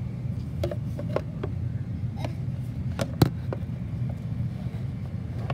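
Handling noise from toys being moved: scattered light clicks and knocks, the loudest a little after three seconds in, over a steady low hum.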